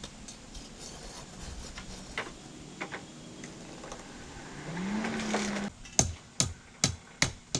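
Hand hammer striking a steel hay-rake tine on an anvil: scattered light taps, a brief low hum about two-thirds of the way through, then about five sharp ringing blows in quick succession near the end as the tip is formed into a small curl.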